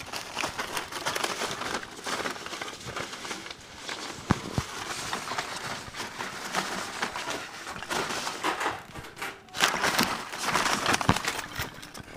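Foam packing peanuts rustling and clicking against each other as a ferret burrows and digs through a pile of them, with louder bursts near the end.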